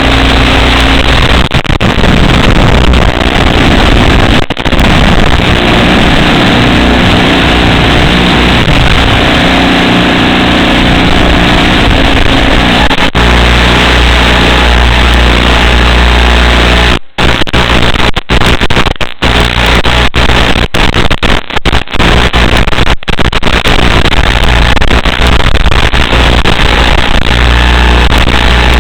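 FPV drone's motors and propellers buzzing loudly and steadily, overloaded by wind rush on the drone's microphone. The sound cuts out briefly several times a little past the middle.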